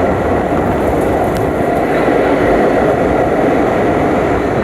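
Passenger train running, its wheels on the track making a steady, unbroken rumbling noise.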